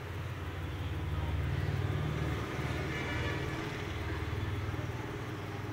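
A motor vehicle's engine running nearby, a low steady rumble that grows louder about a second in and eases a little after two and a half seconds.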